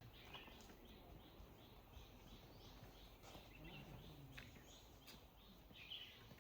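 Near silence, with faint short chirps repeated evenly about three times a second, like a small animal or bird calling.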